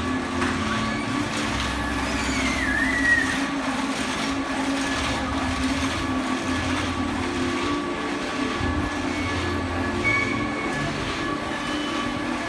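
The machinery of a large mechanical carousel running as it turns: a steady rumble and hum with a thin constant whine. There is a brief squeal about two to three seconds in.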